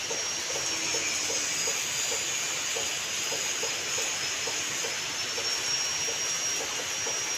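Rain falling in a steady hiss, with a light regular tick about two or three times a second and a thin high tone that wavers slightly in pitch.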